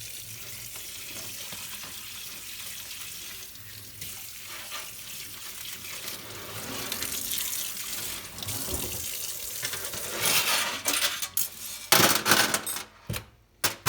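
Kitchen tap running into a plugged sink, growing louder about ten seconds in, then small metal bolts and brake parts clinking against each other and the sink several times near the end.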